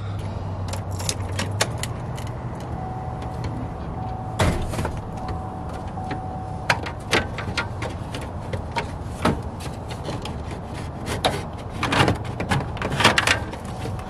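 Plastic dash trim bezel of a 2005 Chevy Silverado being pulled loose by hand, with a string of irregular clicks, knocks and rattles as its clips let go.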